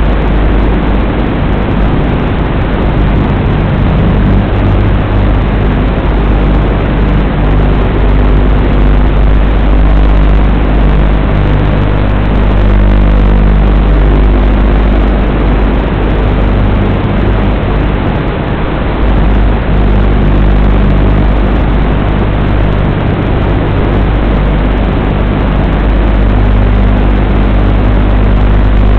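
Steady, loud buzzing hum with hiss carried on the audio channel of the mini quadcopter's analog FPV video link and recorded by the goggles' DVR. The hum's pitch shifts a little now and then as the quad flies.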